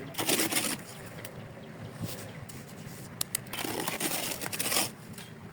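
Two long scraping strokes of a hand tool across the ground, with a couple of sharp clicks between them.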